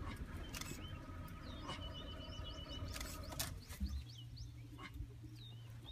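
Many short bird chirps repeat throughout, with a thin held whistle-like tone through the middle. A low steady hum sits underneath in the second half, and there are a few sharp knocks.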